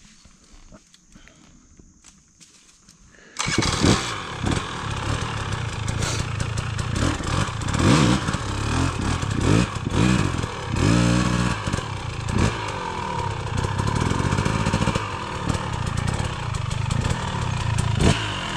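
Dirt bike engine coming in suddenly about three seconds in, then running loudly with its pitch rising and falling as it is revved.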